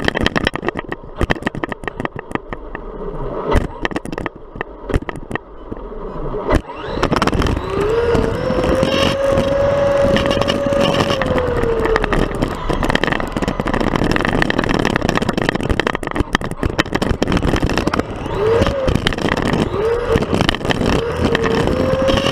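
Traxxas MAXX RC monster truck heard from its own on-board camera: a few seconds of clicks and rattles, then about seven seconds in loud wind and road noise as it drives at speed, with the brushless motor's whine rising and holding, fading, and climbing again near the end.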